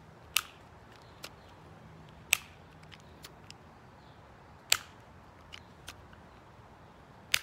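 Benjamin Sheridan Model 190B multi-pump air pistol being pumped four times to build its charge. Each stroke of the pump lever ends in a sharp click, about two seconds apart.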